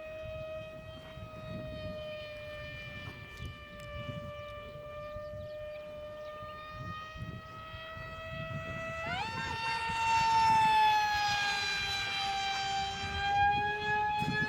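A scratch-built Novajet RC plane's motor whining in flight, a steady high pitched tone. About nine seconds in it jumps higher in pitch and gets louder, then slowly sags in pitch.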